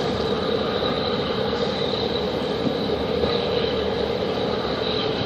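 Steady mechanical drone with a constant mid-pitched hum and a faint high whine, unbroken throughout.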